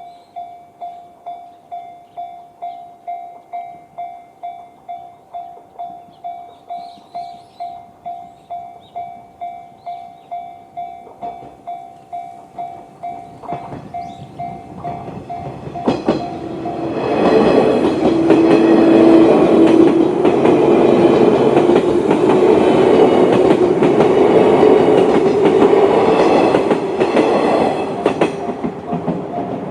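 Japanese level-crossing alarm with the JR standard bell sound, ringing steadily about twice a second. About sixteen seconds in, a JR 185-series electric train passes, its loud rumble and wheel clatter drowning the bell for about eleven seconds before the bell is heard again.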